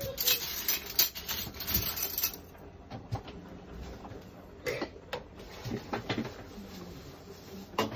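Rubbing and rapid clicking for about the first two seconds, then a few light separate taps of a fork against a bowl of raw eggs.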